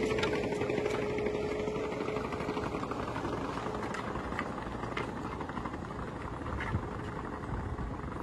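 Tractor engine running under load while it pulls a disc harrow through stony ground, with a few sharp knocks along the way. The sound fades slowly as the rig moves off.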